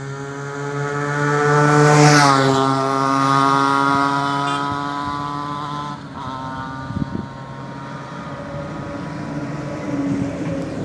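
Benelli TNT 300 parallel-twin motorcycle with an aftermarket Ixil silencer passing at speed. The engine note builds to its loudest about two seconds in, drops in pitch as the bike goes by, then fades away.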